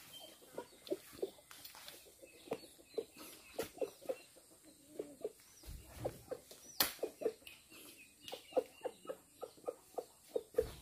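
A chicken clucking: a long string of short, soft clucks, two or three a second, with a single sharp knock about seven seconds in.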